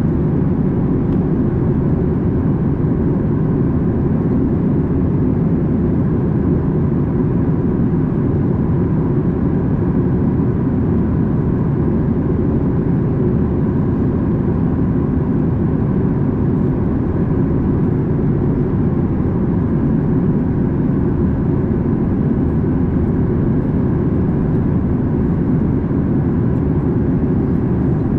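Steady engine and rushing-air noise inside the cabin of a Boeing 737 MAX 8 in flight, from its CFM LEAP-1B turbofans, mostly a deep rumble with a faint steady tone above it.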